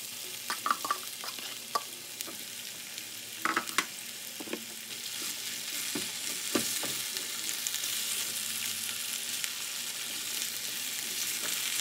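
Matchstick-cut raw potatoes sizzling in hot oil in a frying pan as they are scraped in and stirred with a spatula, with a few sharp knocks and clatters of utensils and falling pieces. The sizzle grows louder about halfway through.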